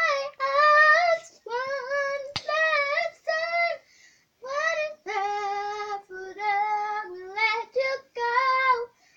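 A young girl singing an improvised song without accompaniment: held, wavering notes in short phrases with brief pauses for breath between them, stopping just before the end.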